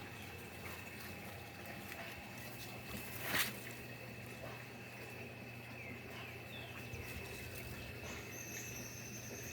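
Quiet outdoor ambience with a few faint bird chirps and a steady high thin whine, broken by one short loud noise about three and a half seconds in; a higher whistle-like tone starts near the end.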